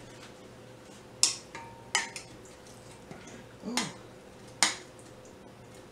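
A spoon clinking against a ceramic bowl and a glass pitcher as watermelon chunks are scooped into the pitcher: several short, sharp clinks about a second apart.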